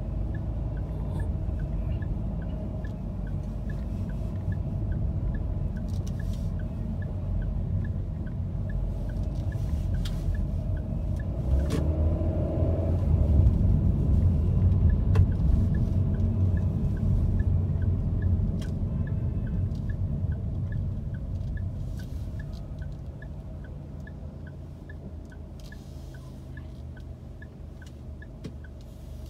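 Low, steady engine and road rumble of a car driving, heard inside the cabin, swelling for a few seconds near the middle and easing off toward the end. A light, regular ticking, about two a second, runs through much of it.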